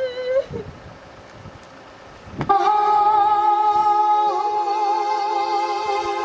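Devotional hymn music: a singer's held note ends about half a second in, and after a short lull a sustained chord of several steady notes comes in suddenly about two and a half seconds in and holds, with a slight moving line over it.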